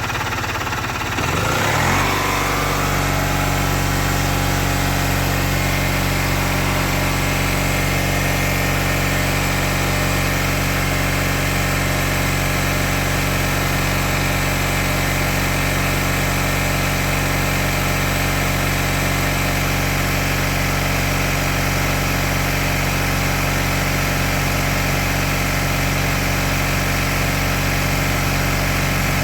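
Mahindra Supro BS6 diesel engine running; about two seconds in its speed rises and then holds steady at a raised idle, as a regeneration is run to test the urea (DEF) pump.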